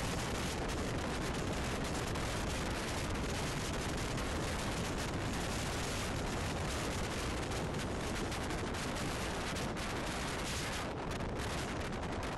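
Wind buffeting the microphone out of an open train window, over the steady running noise of a Rhaetian Railway train on its track.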